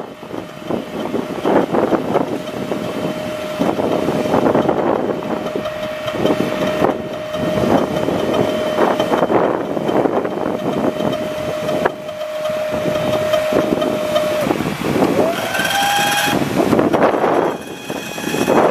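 Machinery running with a steady whine, then a short whine that rises in pitch about fifteen seconds in and stops.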